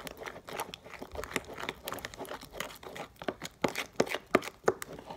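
Sticky homemade slime being stirred in a plastic tub: a rapid, irregular run of wet crackles and clicks as the mixture starts to form.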